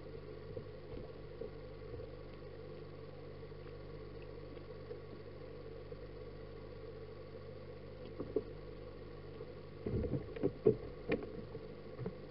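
Steady low hum of aquarium pump and filter equipment, heard underwater through the sealed housing of a submerged action camera. A short run of knocks and clicks comes about ten seconds in.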